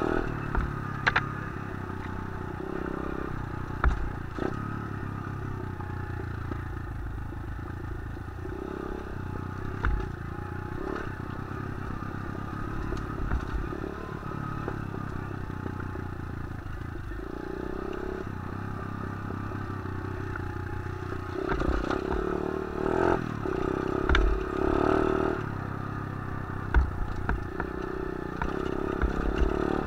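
A 125cc pit bike's engine running while the bike rides over a rough dirt trail, with clattering and knocking from the bike over bumps and rocks. The engine gets louder for a few seconds past the middle.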